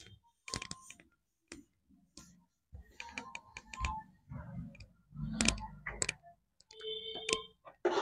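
A cloth duster wiping a chalkboard, with scattered sharp clicks and a few dull knocks, and a short squeak near the end.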